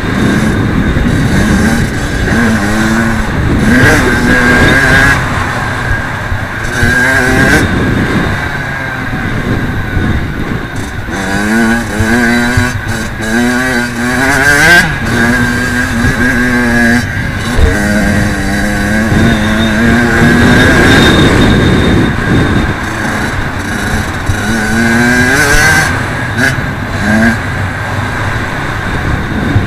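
Kawasaki KX85 two-stroke dirt bike engine being ridden hard: it revs up, shifts and drops back again and again, the pitch climbing in repeated sweeps.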